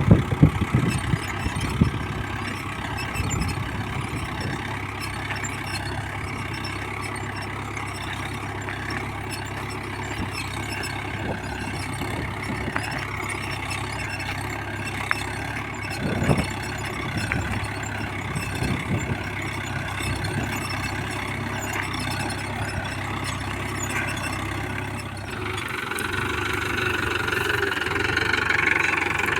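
Mahindra Yuvo 415 DI tractor's four-cylinder diesel engine running steadily, growing louder near the end.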